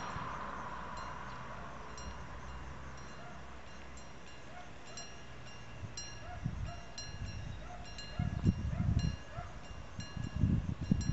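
Wind gusting on the microphone, with low rumbling buffets that grow loudest in the second half. Faint, short high-pitched chiming tones repeat every half second or so throughout, and the tyre noise of a car driving away fades out at the start.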